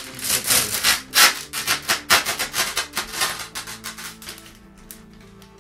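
Plastic protective film being pulled and peeled off an iMac's display: a rapid run of crinkling, rustling strokes that die away near the end, over quiet background music.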